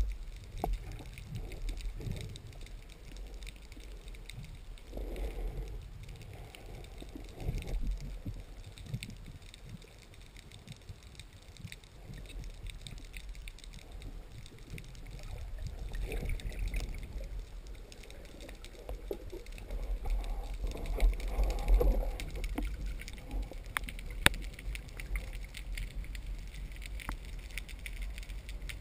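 Underwater ambience as picked up through a camera housing: a muffled low rumble of water moving past the housing that swells and fades, with scattered faint sharp clicks.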